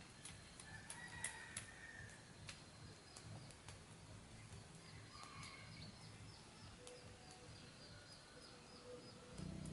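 Faint outdoor ambience: a run of short high chirps, about three a second, from about halfway through, with a few other soft bird calls and scattered faint clicks.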